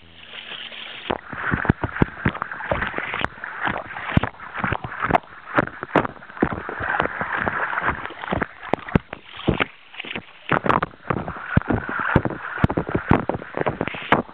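A dog's front paws splashing in a shallow kiddie pool: irregular slaps of paws striking the water, a few a second, over a steady wash of churning water.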